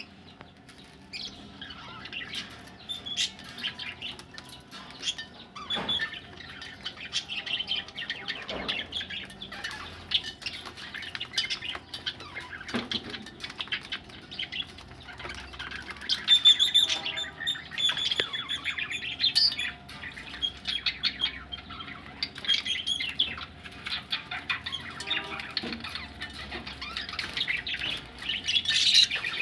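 A group of budgerigars chattering and chirping continuously, with a busier, louder stretch of calls about halfway through.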